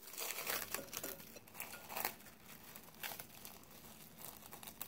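Plastic cling wrap crinkling as it is peeled off a glass bowl, in irregular crackles that are loudest over the first two seconds and fainter after.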